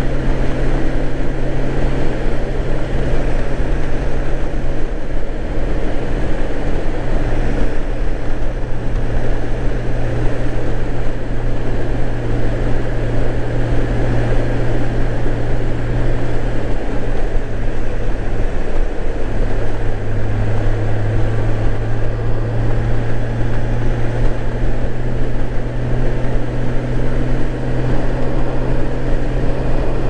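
Honda GL1800 Gold Wing's flat-six engine running steadily at cruising speed under a rush of wind noise; the engine note drops a little about nineteen seconds in.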